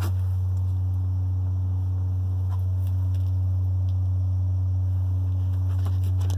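Steady, very low-pitched hum from underneath a parked Jeep Cherokee XJ whose engine is off and whose battery has been removed; its source could not be pinpointed.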